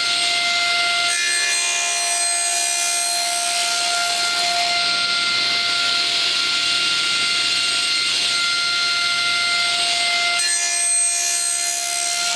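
Table saw with a 10-inch blade running at speed and cutting a slot in a pallet-wood divider. The cut runs from about a second in until near the end, when the saw goes back to a steady free-running hum.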